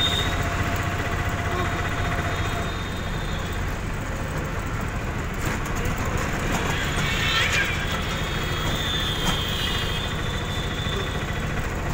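Auto-rickshaw engine running with a steady low rumble, heard from inside the cabin while riding, with street traffic around it.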